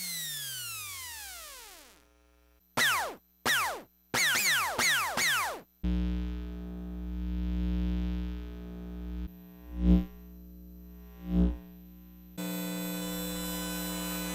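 Electromagnetic fields of household appliances picked up by a LOM Priezor induction microphone, heard as electronic tones. First a blender motor's field falls in pitch as the motor spins down, then four short bursts of falling tones as the blender is pulsed. A steady electrical hum beside a microwave oven with two brief loud swells follows, and near the end a steady buzz from a Korg electronic music unit.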